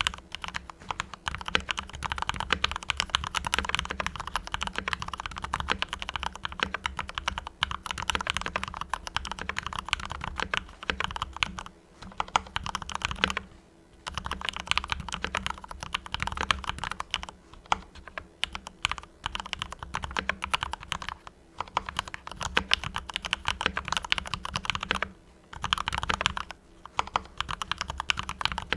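Fast typing on a Mars Pro mechanical keyboard with fully lubed Cherry MX Red linear switches: a dense run of keystrokes with a few brief pauses.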